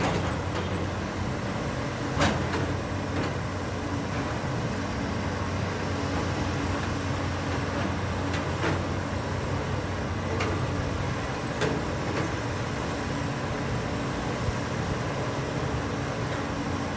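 Heavy construction machine's diesel engine running steadily, with a low drone. A few sharp knocks or clanks are heard, one about two seconds in and a few more later on.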